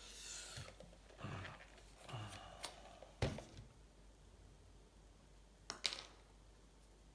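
Small metal tools handled on a workbench: scattered light clicks and rattles, with a sharper knock about three seconds in and another near six seconds.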